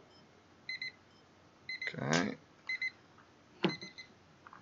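Short electronic beeps repeating about once a second, with a couple of sharp clicks and a brief louder sound of falling pitch about two seconds in.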